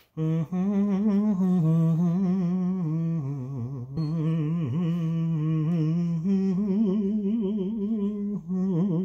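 A man humming a tune with his mouth closed, one unbroken wavering line that steps between a few notes and briefly dips in pitch about halfway through.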